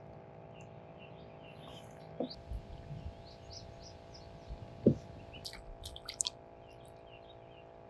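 Small birds chirping, with a few sharp knocks and clicks, the loudest knock about five seconds in.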